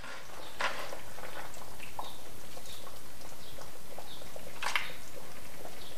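Cabbage, tofu and glass-noodle stew simmering in a wok, small bubbles popping over a steady hiss, while a metal ladle scoops it into a bowl and knocks against the pan twice.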